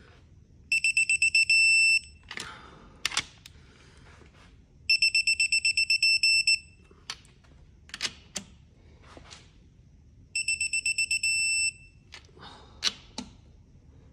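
Digital torque wrench beeping as BMW N54 cylinder head studs are pulled up to final torque: a fast run of high beeps that runs together into a steady tone at target, three times over, once for each stud. Sharp metal clicks and knocks from the wrench and sockets fall between the beeps.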